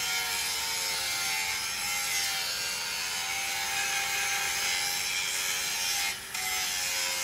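Large angle grinder running with its disc ground against a cast steel anvil, a steady abrasive grinding over the motor's whine, with a brief dip about six seconds in. The disc is taking the casting skin and small imperfections off the cast steel.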